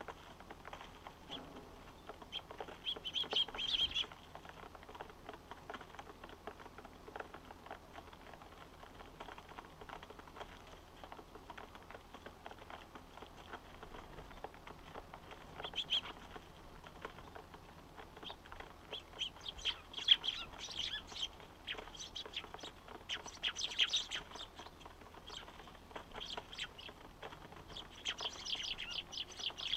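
Eurasian tree sparrows chirping in short bursts, busiest in the second half, with faint ticks in between.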